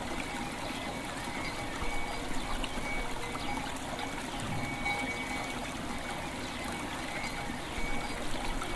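River water flowing steadily, with bells ringing clear sustained tones that sound and fade over the rush of the water.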